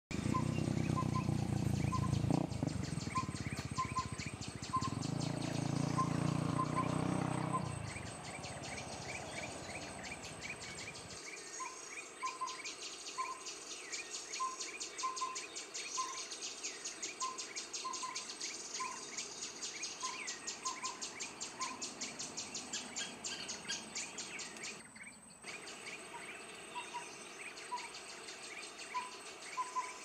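Tropical forest ambience: a steady high insect buzz under repeated short bird calls, including mellow whistled notes in twos and threes and quick chirps from background forest birds such as the collared owlet. A low rumble runs under it and is loudest for the first several seconds, fading out about a third of the way in.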